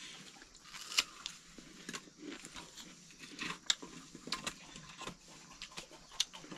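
Irregular sharp clicks and crackles of firewood being stoked on a wood fire's embers in a mud hearth, with a few louder snaps about a second in, midway and near the end.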